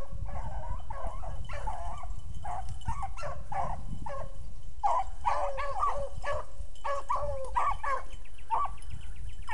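Beagle hounds baying as they run a rabbit on its scent trail: a continual string of short, repeated calls, the sign that the pack is on the track.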